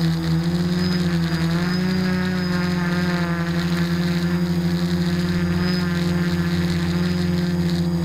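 Quadcopter's electric motors and propellers humming steadily as it flies, heard through the camera mounted on the craft, the pitch wavering slightly as the motors adjust.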